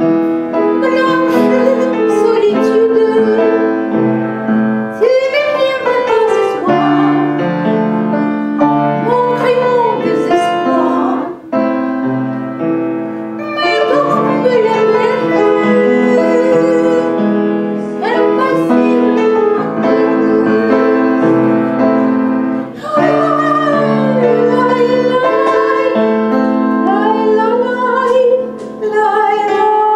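A woman singing with vibrato into a corded microphone over sustained instrumental chords, the melody pausing briefly about eleven seconds in and again near the end.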